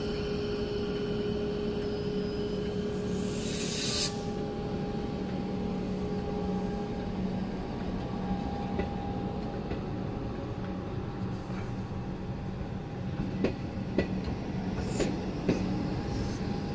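Comeng electric suburban train pulling out of the platform, running with a steady hum. A short rising hiss ends abruptly about four seconds in, and sharp wheel clicks come in near the end as the cars roll past.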